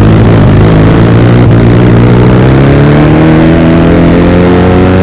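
Motorcycle with a loud modified exhaust running, its engine note steady at first and then rising slowly in pitch from about halfway in.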